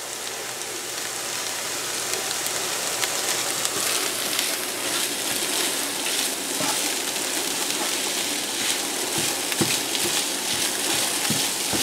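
Scrambled eggs with chopped green peppers sizzling in a nonstick skillet, stirred and scraped along the pan with a silicone spatula; a steady sizzle with many light strokes.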